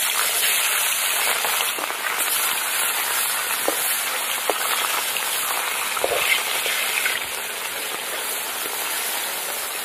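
Pieces of turmeric-rubbed river fish sizzling as they fry in hot mustard oil in a kadai, a steady dense hiss with a few faint clicks.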